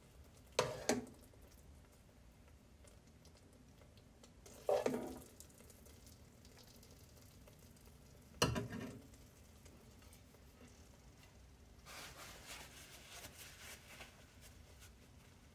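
Spoon knocking and scraping against metal pans while serving chicken curry and fried rice onto a plate: three short clanks about four seconds apart, then a softer, longer scraping near the end.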